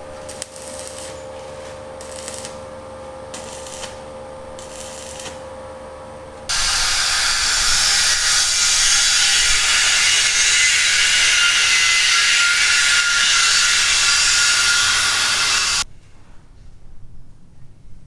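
A power tool running loudly for about nine seconds, with a high, wavering whine over a harsh hiss, starting and stopping abruptly. Before it comes a steady hum with a few short hissing bursts.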